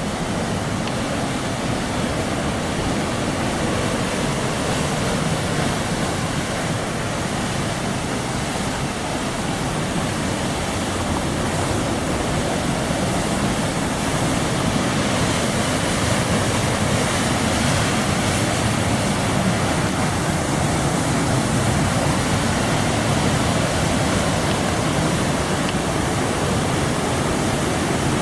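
Waterfall: water pouring and rushing steadily, an even continuous rush with no breaks.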